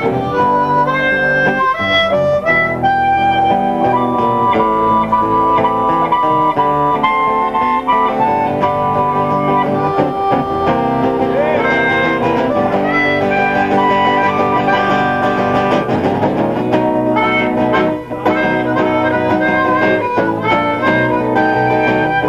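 Acoustic band music: acoustic guitars strumming under a harmonica playing held melody notes.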